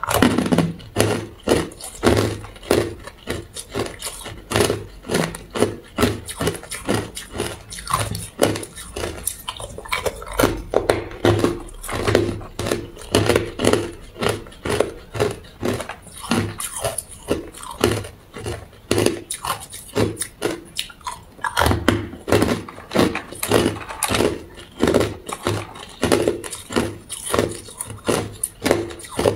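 Hard clear ice being bitten and chewed: a steady run of sharp crunches and cracks, about two or three a second.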